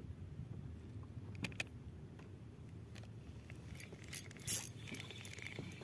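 Quiet, faint low rumble with a few small clicks and a brief scrape, from a spinning fishing reel being handled.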